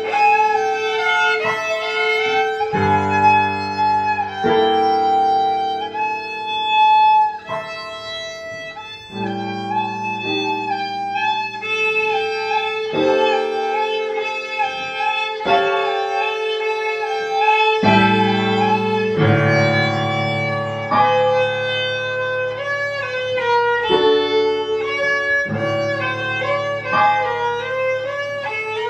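Solo violin played with the bow, a melody of held and moving notes, over a lower accompaniment of sustained bass notes that change every few seconds.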